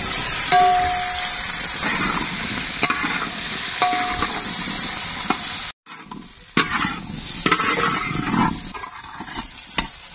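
Crabs frying in hot sunflower oil in a pan: a steady loud sizzle, with a metal ladle stirring, clicking and briefly ringing against the pan. About halfway through, the sound breaks off for a moment and resumes quieter, with more scraping and clicks.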